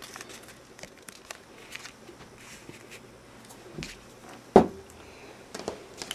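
A paper mask being handled and laid over a stamped card on a tabletop: faint rustles and small taps, with one louder thump a little past halfway.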